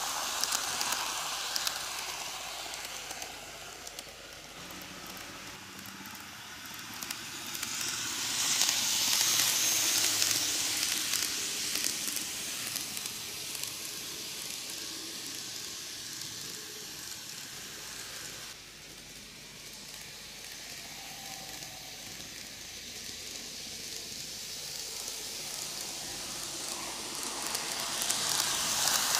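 Greenmax N-gauge Tobu 6050 series four-car model train running on TOMIX superelevated track: a steady crackling hiss of small wheels on rails and running gear. It is loud as the train passes close, fades as it goes round the far side of the loop, and swells again near the end as the train comes back toward the camera.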